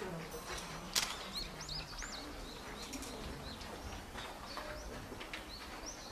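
Small birds chirping: repeated short, arched high-pitched notes, with a single sharp click about a second in.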